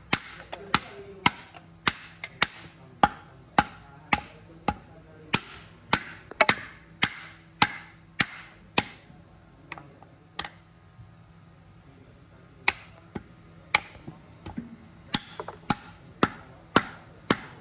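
Hatchet chopping at the end grain of a large turned wooden table pedestal: sharp wooden chops about twice a second. The chopping lulls for a few seconds midway, with only a couple of lone strikes, then picks up again.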